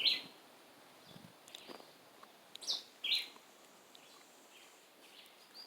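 A bird giving short, sharp, high chirps a second or two apart, the loudest at the very start and a close pair a little before halfway, with fainter calls in between.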